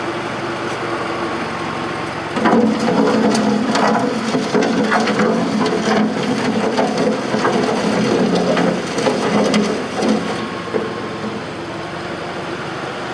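Bobcat 610 skid-steer loader's Wisconsin gasoline engine running steadily. From about two seconds in to about ten seconds in, a louder stretch of crunching, rattling and knocking rises over the engine, then it settles back to the engine alone.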